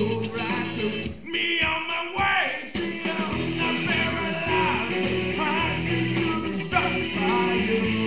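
Live rock song: a man singing into a handheld microphone over backing music with a steady beat, his voice sliding down in pitch about two seconds in.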